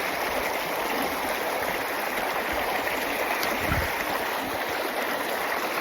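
Creek water running steadily, an even rushing noise, with one brief low thump about two-thirds of the way through.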